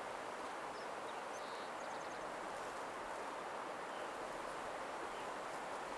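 Soft, steady rushing nature ambience with a few faint, brief high bird chirps and one quick chirping run about two seconds in.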